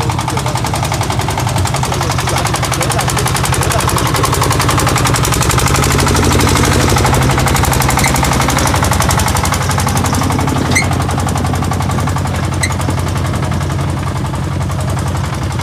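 Single-cylinder diesel engine of a paddy-field boat tractor running steadily under load, a rapid, even beat of firing strokes.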